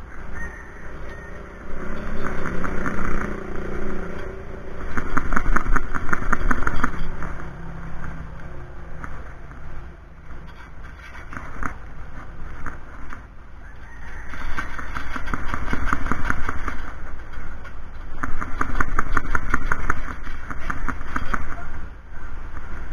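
Bolts on an antenna mounting bracket being tightened with a tool: four bursts of rapid mechanical clicking, each two to three seconds long.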